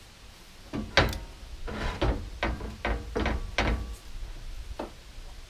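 Heavy steel gooseneck hitch frame clanking against the truck's steel frame rails and side brackets as it is set in place: one sharp clank about a second in, then a quick run of metal knocks and one more near the end.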